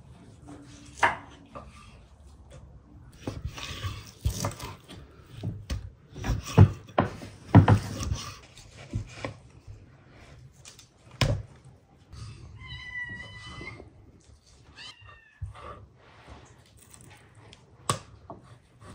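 Knife strokes knocking on a wooden cutting board as raw meat is cut, irregular and loudest in a cluster about six to eight seconds in. A cat meows twice in the second half, one drawn-out meow and then a shorter falling one.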